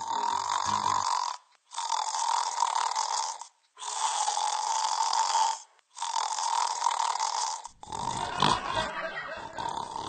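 Snoring ringtone: four long, loud snores, each about two seconds with a short gap between, followed in the last two seconds by a rougher, deeper sound.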